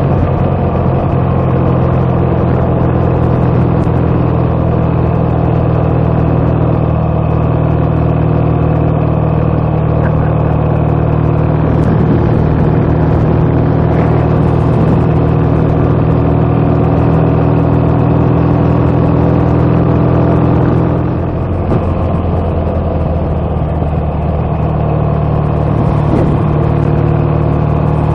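BSA A65 650 cc parallel-twin engine running steadily at cruising speed, heard from on the bike. About 21 seconds in, the note drops as the throttle is rolled off, then it settles back into a steady run.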